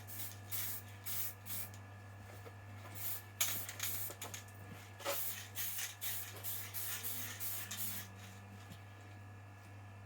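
Aerosol can of acrylic spray paint sprayed in many short bursts of hiss, which stop about eight seconds in.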